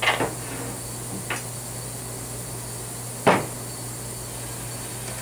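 Three short knocks of cleaning gear and rifle parts being handled on a table, the last, about three seconds in, the loudest.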